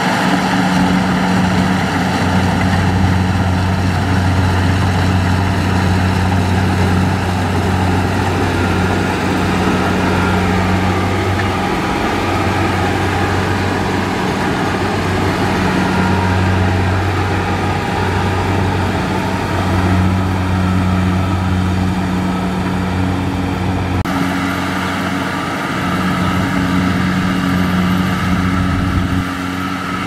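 Kubota DC70Plus rice combine harvester running steadily while it cuts and threshes rice: a constant engine drone with the hum of the working machinery. The tone shifts slightly about 24 seconds in.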